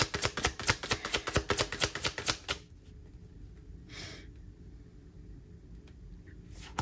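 Tarot deck being shuffled in the hands, the cards clicking rapidly, about six a second, and stopping about two and a half seconds in. A soft brush of cards follows a little later, and the clicking starts again at the very end.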